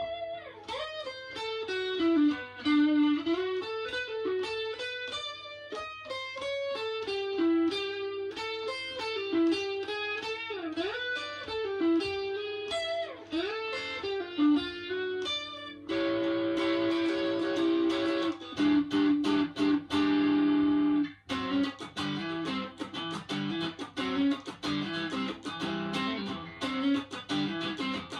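Stratocaster-style electric guitar playing a 12-bar jam. For the first half it plays single-note lead lines with string bends. About sixteen seconds in it switches to strummed and chopped rhythm chords.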